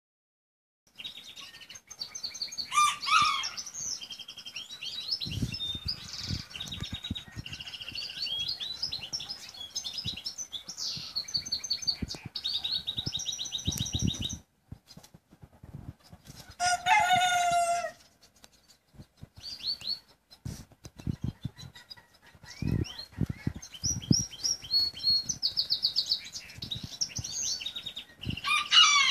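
Many small birds chirping, with one rooster crow about seventeen seconds in and bursts of low rustling and flapping, like feathers being shaken.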